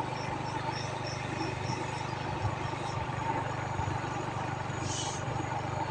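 Motorcycle engine running steadily while riding along, with road and wind noise. Through the first second or so there is a row of short, high chirps, and a brief high hiss comes near the end.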